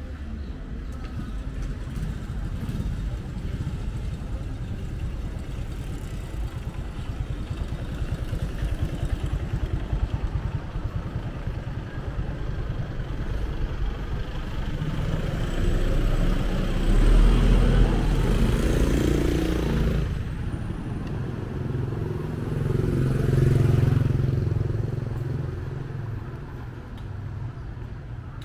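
City street traffic: a steady low rumble, with two motor vehicles passing close by, the first a little past halfway and the second a few seconds later, each swelling and fading.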